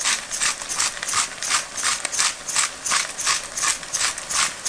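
Chicken and onions frying in a stainless steel pot, stirred with a utensil in a steady rhythm of about three scraping strokes a second over a continuous sizzle, as the just-added salt and spices are mixed in.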